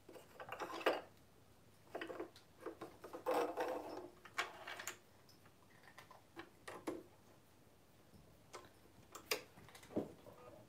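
Irregular small clicks and rustles of hands handling thread and plastic parts on top of a domestic sewing machine, with the machine not running.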